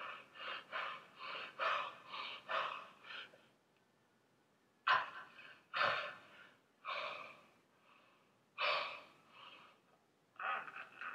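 A person's heavy, panting breaths: a quick run of about six breaths, a pause of about a second and a half, then single breaths a second or two apart.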